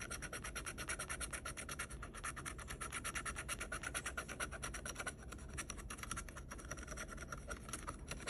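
Metal scratcher edge scraping the latex coating off a paper scratch-off lottery ticket in rapid back-and-forth strokes, many a second, a dry scratching that goes on steadily and eases off near the end.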